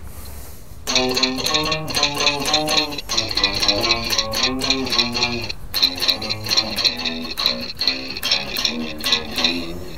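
Nylon-string classical electric guitar amplified through its piezo bridge pickup, played as a run of plucked notes and chords. The playing starts about a second in, after a short pause.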